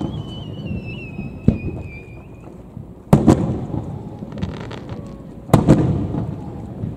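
Aerial firework shells bursting: three booms, the second and third loudest and each a quick double bang, every one trailing off in a rumbling echo. A wavering high whistle sounds over the first two seconds, and a faint crackle comes just before the last boom.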